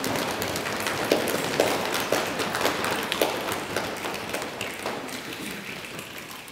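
A choir imitating rain with their hands: a dense patter of finger snaps and taps, with a few louder claps about half a second apart in the first three seconds, thinning and fading out gradually.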